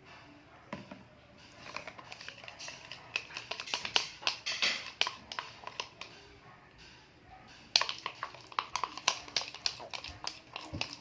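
Glue-based slime mixture being stirred in a bowl: rapid sticky clicks and taps in two spells, one from about two seconds in and another from nearly eight seconds in.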